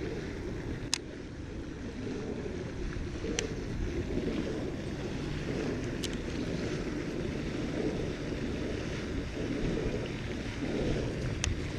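Wind buffeting the camera's microphone, a steady low rumble, with a few faint sharp ticks scattered through it.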